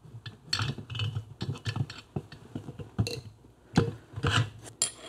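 Irregular metal clicks, knocks and rubbing as a motorcycle engine's finned cylinder barrel is handled over the piston, connecting rod and studs. Sharp knocks come about three and four seconds in.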